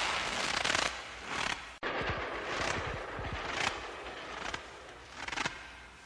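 Footsteps crunching in snow, about one step a second, with a brief sudden cut-out about two seconds in.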